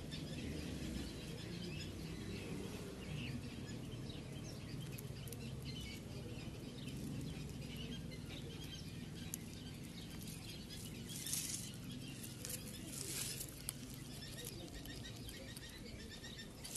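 Outdoor ambience: faint bird chirps scattered over a low steady hum, with a few brief rustles about two-thirds of the way in.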